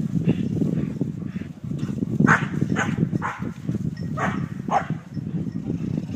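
A German Shepherd dog barking, about five short, sharp barks in the second half, over a steady low rumble.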